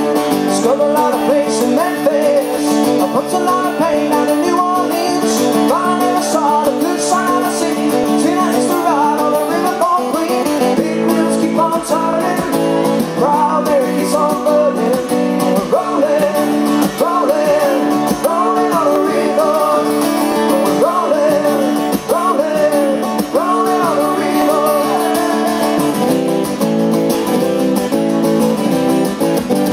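Live acoustic folk performance: two acoustic guitars strummed and picked together under a man's singing voice.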